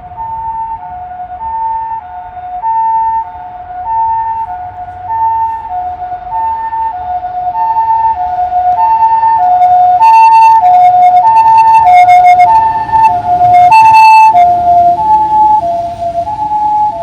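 Japanese ambulance's two-tone hi-lo siren, switching between a higher and a lower note about every two-thirds of a second. It grows louder as the vehicle approaches, is loudest about three-quarters of the way through, then drops slightly in pitch and fades a little as it passes.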